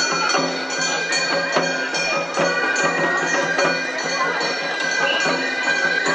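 Japanese festival hayashi music from an Otsu Matsuri float: a high melody of held tones over a steady beat of sharp percussion strikes.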